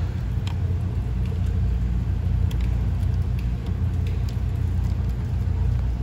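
Steady low machinery rumble, with a few faint clicks as wires are handled at a terminal block.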